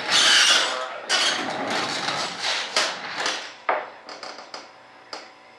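Hand work at a shop bench: a run of scraping and knocking, loudest and densest in the first half, fading to a few light clicks.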